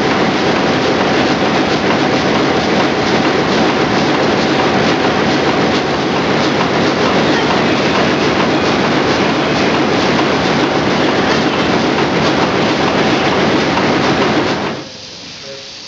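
Ruston single-cylinder horizontal stationary diesel engine running, a loud, steady mechanical clatter of its crank and valve gear as the flywheel turns. Near the end the sound drops away sharply.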